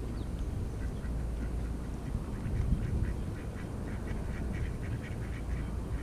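Gulls calling in a rapid run of short, repeated notes that start about a second in and grow thickest between two and five seconds. Wind rumbles on the microphone underneath.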